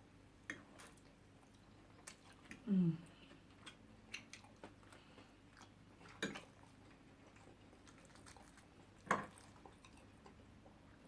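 Close-miked eating sounds: chewing and sharp mouth clicks and smacks, spaced irregularly, with a brief falling vocal sound about three seconds in.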